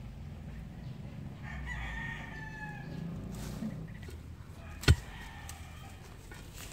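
A rooster crows once, a long call that falls a little at the end. About five seconds in comes a single sharp knock, the loudest sound.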